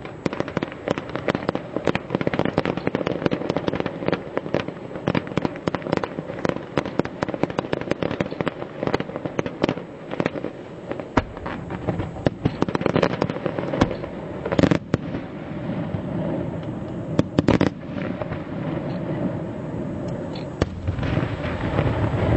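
Fireworks going off: a dense, rapid crackle of many small bursts that thins out about halfway through, then a few louder separate bangs.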